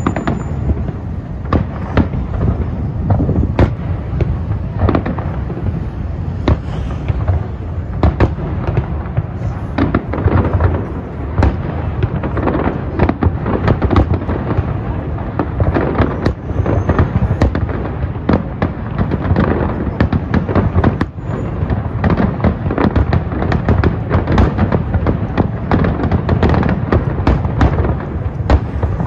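Fireworks display: a dense, continuous run of loud bangs and crackles from shells bursting overhead, with a low rumble under them. The reports grow busier about a third of the way in.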